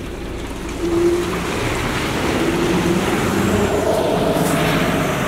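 Bus pulling away: its engine grows louder about a second in and the note climbs in pitch as it gets going. Tyres hiss on the wet, snowy road.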